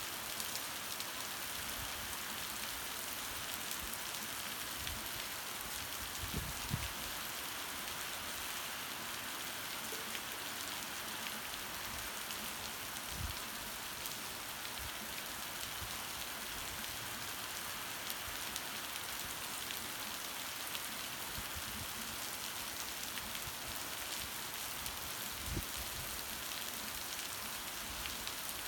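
Heavy rain falling in a steady hiss, with occasional louder drops or drips knocking, the loudest a little over six seconds in.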